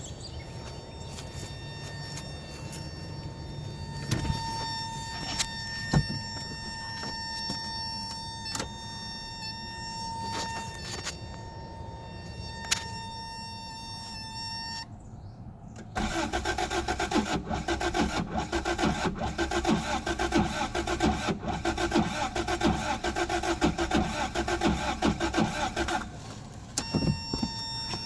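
A car engine cranking on its starter for about ten seconds without catching, a no-start. Before the cranking there are steady high electrical tones and scattered clicks, and the tones come back once the cranking stops.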